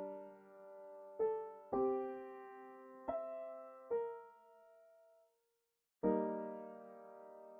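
Background piano music: gentle chords struck about once a second, each ringing and fading, with the music cutting out briefly about five seconds in before a new chord starts.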